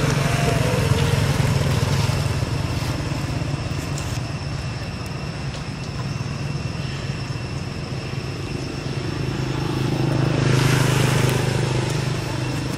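A motor vehicle engine running, a low hum that gets louder at the start and again about ten seconds in, as vehicles pass.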